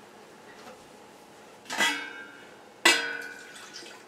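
Stainless steel saucepan clanking twice as it is handled, the second clank about a second after the first, each ringing out briefly.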